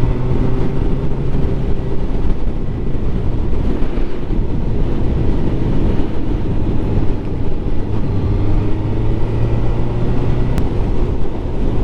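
Motorcycle engine running at a steady road speed, with heavy wind noise on the helmet-mounted microphone. The engine note holds fairly steady with small rises and dips in pitch.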